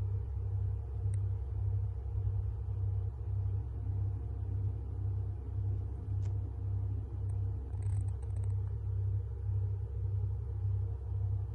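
Motorcycle engine idling: a low, steady rumble that pulses evenly about twice a second.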